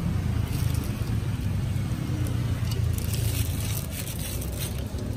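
A motor vehicle's engine running close by, a low steady rumble that swells around the middle and eases off, over the faint crackle of churros dough frying in hot oil.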